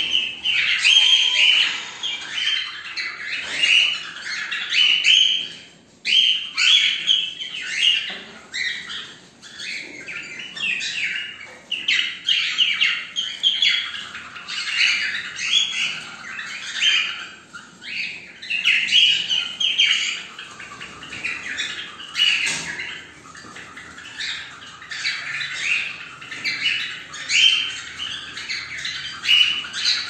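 Several cockatiels calling over one another in short, rapidly repeated calls, with barely a pause.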